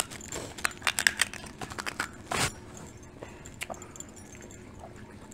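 Snow crab legs being cracked and picked apart by hand and eaten: a quick run of sharp cracks and clicks over the first couple of seconds, a short rustle, then only a few scattered clicks.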